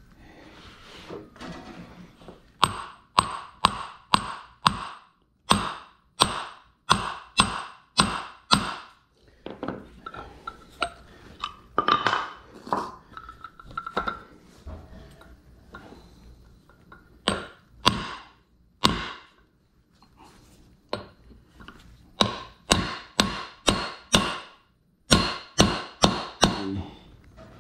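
Hammer tapping on metal, in runs of quick blows about two a second, each with a brief ring, as a part is tapped into the rear differential's coupler housing.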